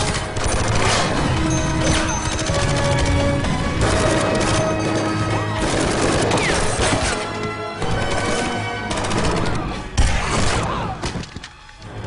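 Action-film soundtrack: repeated gunfire and impacts over background music, with one sharp loud bang about ten seconds in.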